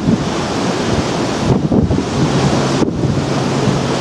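Storm wind buffeting the microphone over the rush of the ship's foaming wake and rough sea. The gusts ease briefly about halfway through and again near three seconds in.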